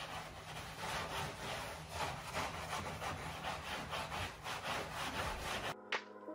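Wooden butcher-block tabletop being hand-sanded with a sanding sponge: quick back-and-forth rubbing strokes, several a second, that stop abruptly near the end as music comes in.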